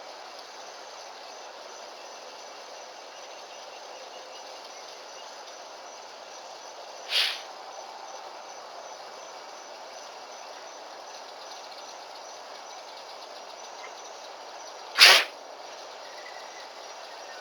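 An animal sneezing twice, about eight seconds apart: two short, sharp bursts, the second the louder. Insects chirp steadily underneath.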